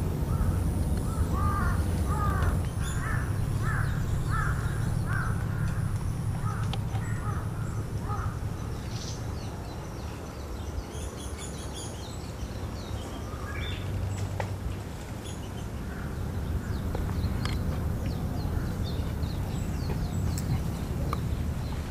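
A crow cawing repeatedly, about two caws a second, for roughly the first eight seconds, over a steady low rumble. Only a few faint clicks and chirps follow.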